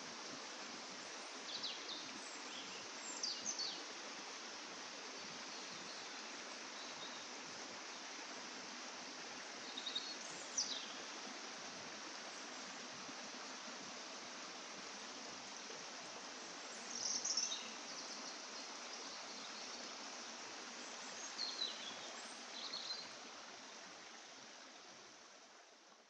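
Steady rush of running water with a few short, high bird chirps now and then, fading out near the end.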